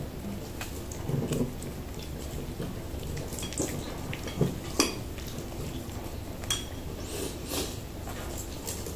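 Chopsticks clicking and tapping against a bowl, with a few sharp clicks past the middle, while a kitten chews broccoli.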